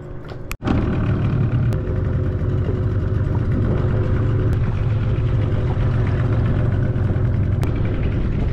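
Small outboard motor on an inflatable dinghy running steadily under way, starting abruptly about half a second in.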